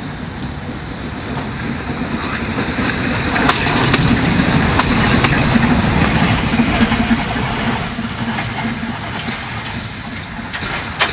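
A vintage tram runs past close by. Its steel wheels click over the rail joints and its running gear rumbles, getting loudest about four to seven seconds in as it passes and then fading.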